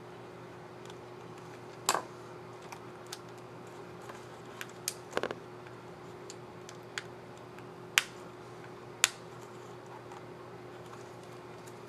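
Sharp plastic clicks of a keycap on an Asus Q504UA laptop keyboard being fitted onto its scissor mechanism and pressed: a scattered, irregular run of single clicks, with a quick cluster about five seconds in and the loudest about eight and nine seconds in, over a faint steady hum.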